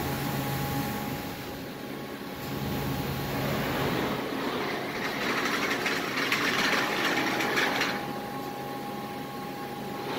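Steady hum of running factory machinery with a constant high whine, and a louder hissing rush from about four to eight seconds in.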